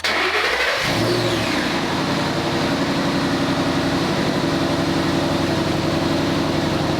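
2011 Ford Mustang GT's 5.0-litre V8 cranked by the starter and catching in under a second, then idling steadily with a fast, even pulse.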